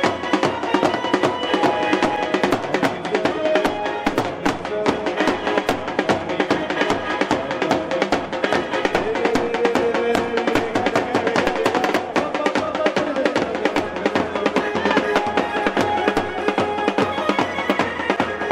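Music with busy, steady drumming under a held melody.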